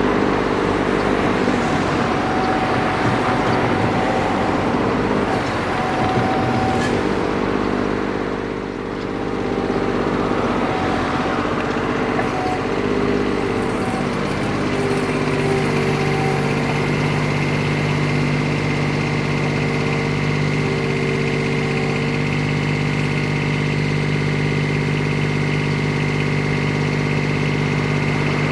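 Komatsu PC10-7 mini excavator's diesel engine running, its pitch shifting with load in the first half. There is a brief drop in level about a third of the way in. From about halfway it settles into a steady note with a thin high whine over it.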